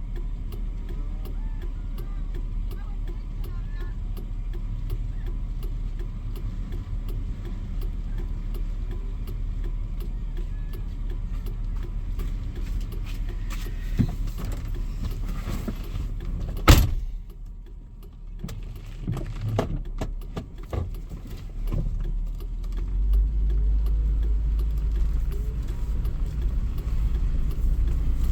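Motor vehicle running with a steady low rumble and a sharp knock a little past the middle. The sound then drops briefly, and from about 23 s a deeper, louder rumble sets in.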